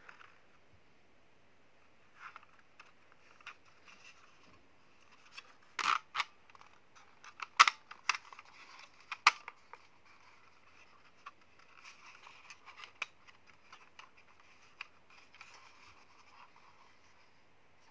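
Hard plastic clicks and rubbing from a drone's remote controller being handled while its fold-out phone holder is pulled open. A cluster of sharp clicks comes around the middle, the loudest about seven and a half seconds in, followed by softer scraping and handling noise.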